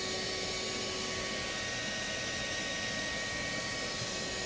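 Steady whooshing noise of a loud fan running, with a few faint steady hums under it.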